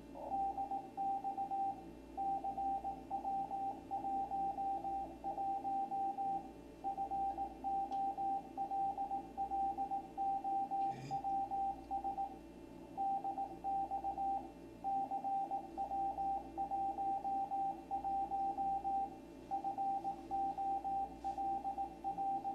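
Morse code (CW) from the ARRL station W1AW coming out of a shortwave receiver: a single high tone keyed on and off in quick dots and dashes, with short pauses between words, over a low steady hum and hiss from the receiver. It is sending the bulletin header 'DX CW11 follows'.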